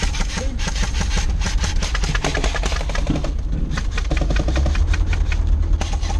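Military four-by-four's engine running as it drives over a rough dirt field, a steady low rumble with a rapid, irregular rattle of clicks over it.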